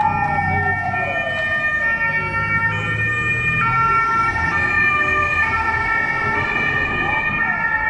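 Sirens of passing vehicles in a road convoy: one siren's pitch falls slowly over the first three seconds or so, over several steady high tones, with the low rumble of vehicle engines beneath.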